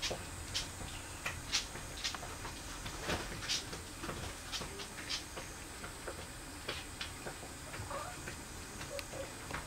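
Irregular soft clicks and ticks, a few a second, from a cat moving close to the microphone.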